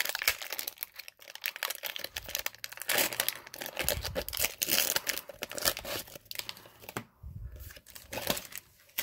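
Foil Pokémon trading-card booster pack being torn open by hand, the wrapper crinkling and tearing in many quick crackles, with a short lull about seven seconds in.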